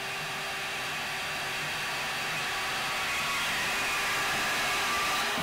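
DeWalt DWM120K deep-cut portable bandsaw running steadily as its blade cuts through steel angle iron, a steady motor whine over the hiss of the blade on the steel. At the very end the motor is let off and its pitch begins to fall as it winds down.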